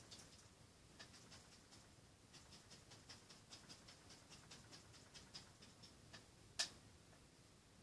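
Faint, quick ticks of a paintbrush dabbing paint onto a canvas, several a second at an uneven pace, with one louder click near the end.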